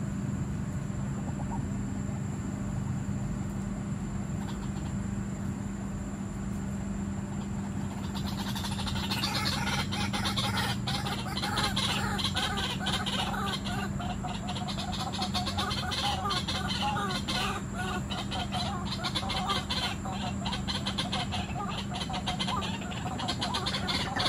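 White-breasted waterhens calling: a dense, rapid chattering that starts about a third of the way in and keeps on, over a steady low hum.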